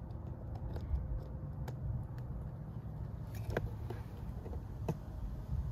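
A few small sharp clicks of a clear plastic LED puddle-light housing being handled and pushed against the car's door trim, the clearest a pair about three and a half seconds in and one near the end, over a steady low rumble of background noise.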